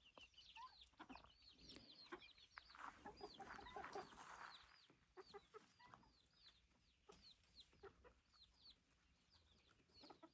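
Faint chickens clucking, with short high chirps repeating every fraction of a second and a somewhat louder stretch of clucking about three to four seconds in.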